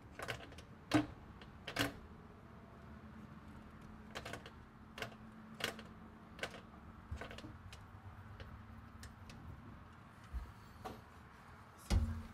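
Irregular light metallic clicks and taps as the camshaft of an LQ4 V8 is turned by hand with a long bar in its nose, the lifters and cam lobes touching as it rotates. A duller, louder knock comes near the end.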